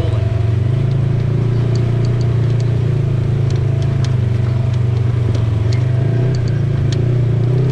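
Off-road vehicle engine running at a steady, even speed, with scattered light clicks and rattles over it.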